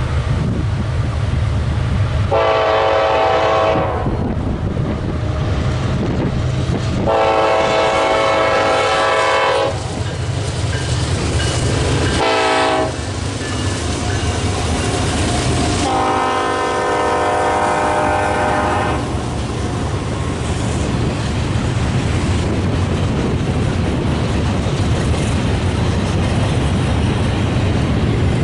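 Diesel locomotive air horn sounding long, long, short, long, the grade-crossing signal, over the steady low rumble of a passing train that carries on after the last blast.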